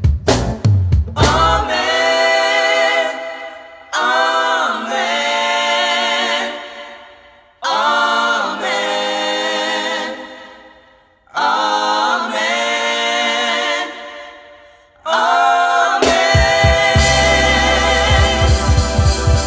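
Worship music: a group of gospel singers sings four short unaccompanied phrases, each held and fading away, after a brief drum-kit fill. Near the end the drums and band come back in under the voices.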